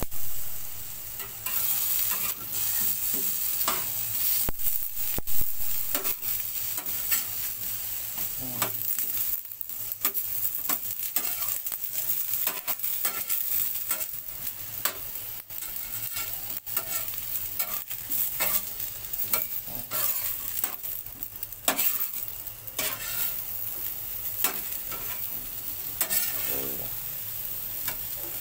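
Eggplants grilling over a wood fire: a steady sizzling hiss with frequent irregular crackles and pops.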